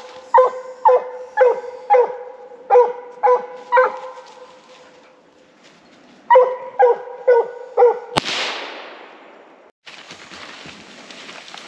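Coonhound barking at a treed raccoon, short chop barks about two a second: a run of seven, a pause, then four more. Just after the barks comes a sharp crack with a fading hiss, followed by steady rustling noise.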